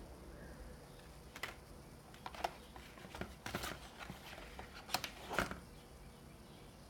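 Paper and cardboard product packaging being handled: a scattered run of short rustles and light taps, between about a second and a half and five and a half seconds in.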